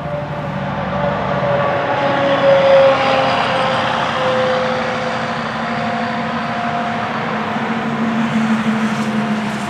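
Federal Signal 2001-SRN rotating tornado siren sounding its steady Alert tone, the loudness swelling and fading as the rotating head sweeps past, loudest about three seconds in and again near the end.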